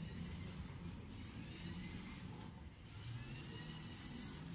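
Faint whine of the Lego Technic Off-Road Buggy's two large electric motors driving it across the floor, the pitch sliding up and down as its speed changes.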